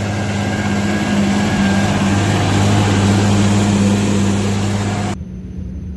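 Claas farm tractor's diesel engine running steadily under load while pulling a plough through the soil, cutting off suddenly about five seconds in.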